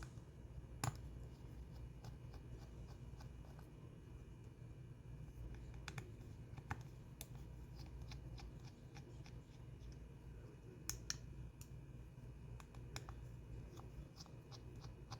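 Scattered small clicks and ticks of a precision screwdriver and tiny screws being removed from a smartphone's inner frame, over a low steady hum. The sharpest clicks come about a second in and again around eleven seconds.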